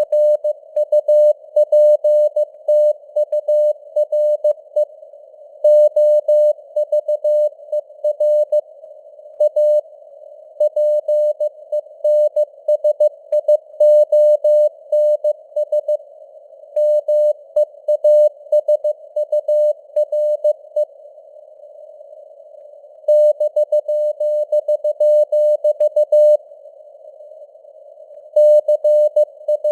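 Morse code (CW) at 15 words per minute: a single mid-pitched tone keyed on and off in dots and dashes, with simulated radio-receiver noise hissing faintly around it between the elements. There are a few longer pauses between words.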